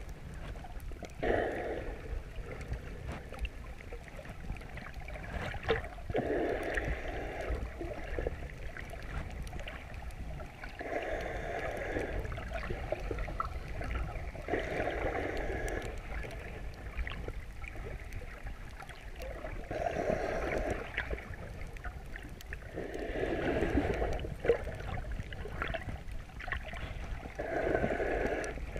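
Underwater sound picked up through a chest-mounted GoPro's waterproof housing: a muffled, steady water wash with a low rumble. On top of it a swimmer breathes slowly, one muffled breath every three to five seconds.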